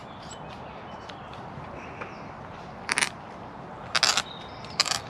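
Hand auger boring into green wood: three short scraping rasps about a second apart in the second half, over a steady low background hiss.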